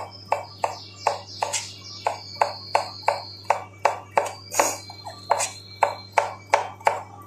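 Kitchen knife finely chopping cucumber on a cutting board: steady, even knocks of the blade on the board, about three a second. A faint high-pitched tone sounds behind it for much of the time, and there is a low hum.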